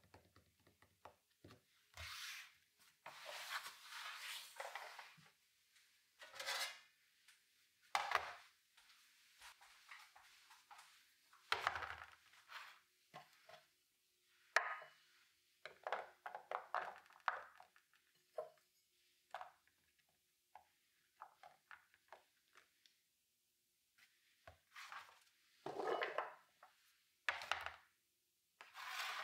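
Butternut squash being cut and handled on a wooden cutting board: irregular knife scrapes and cuts, and knocks of squash cubes against the board and a small metal measuring cup.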